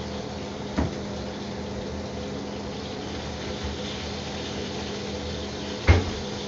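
Chicken breast sizzling in hot olive oil in a frying pan, a steady hiss over a low hum. Two short knocks cut through it, a small one a little under a second in and a louder one near the end.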